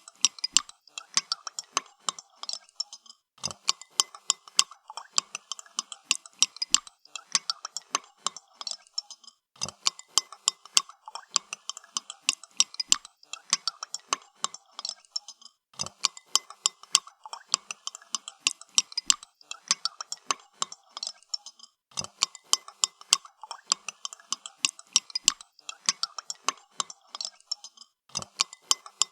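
A spoon stirring coffee in a cup, clinking against the cup's sides in a fast, steady run of light ticks, broken by a short pause about every six seconds.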